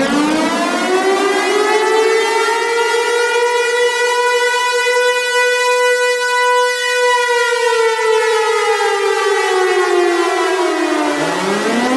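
Tornado warning siren sounding a wail: its pitch climbs, holds high for a few seconds, then slides slowly down, and near the end starts climbing again.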